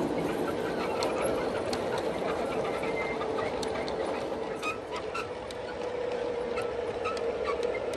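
G-scale model freight cars rolling past on outdoor track: a steady rolling rumble with irregular clicks of wheels over the rail joints and a steady hum underneath.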